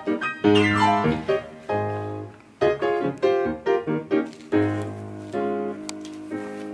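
Background piano music: a melody of struck notes with a quick falling run about a second in, settling into quieter held notes near the end.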